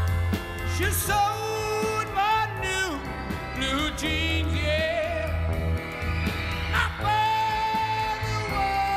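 A male lead singer sings at full voice over a rock band with electric guitar and a steady beat, ending on a long held note.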